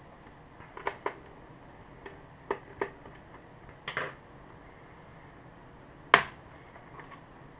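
A series of sharp clicks and knocks as a laptop's plastic bottom cover and a small screwdriver are handled, spaced irregularly, the loudest about six seconds in.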